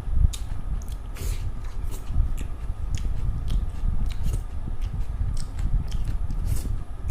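Close-miked chewing and eating of rice and fish curry, with frequent small wet mouth clicks and smacks at an irregular pace.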